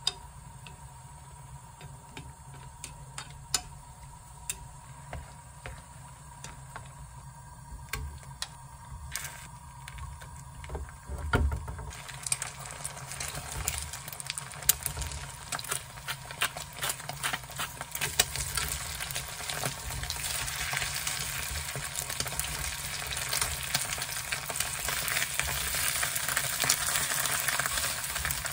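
Wooden chopsticks tapping and clicking against a pot while stirring a simmering hot pot. About twelve seconds in, this gives way to sliced zucchini frying in oil in a frying pan: a dense sizzle with scattered taps, growing louder toward the end.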